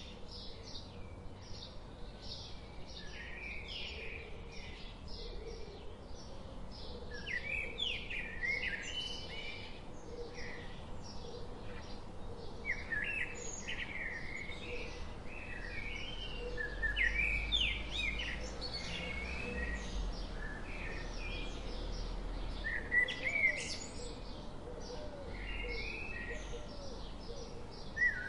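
Many small birds chirping, short quick calls overlapping without a break.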